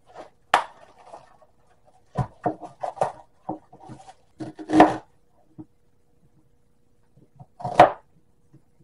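Handling and rustling of a plastic bag of celery, then a kitchen knife cutting celery stalks on a cutting board. Irregular sharp crackles and knocks, the loudest about five seconds in and again near the end.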